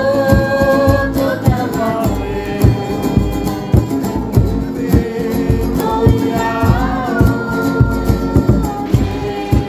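Background music: a song with sung vocal lines over a steady beat.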